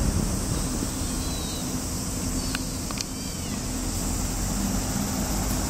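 Street traffic with a city bus driving past, a steady low rumble. Over it come a few short, high, arching calls from an animal, about a second in and again around three seconds in, with two sharp clicks just before the second calls.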